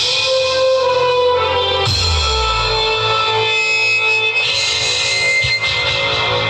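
Amplified band music: a lead instrument with an electric, guitar-like tone plays a melody of held notes over a bass line. About two seconds in, a deep bass note slides downward.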